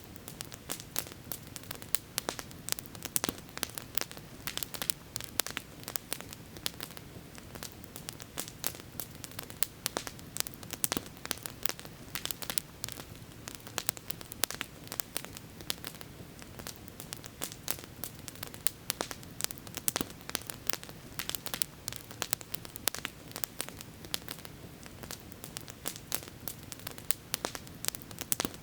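Campfire burning with a steady stream of irregular crackles and pops from the burning wood, over a low, even background rush.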